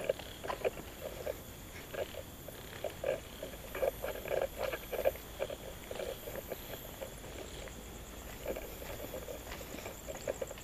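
Footsteps walking on concrete, an irregular run of short scuffs and knocks, over a faint steady high-pitched insect chorus.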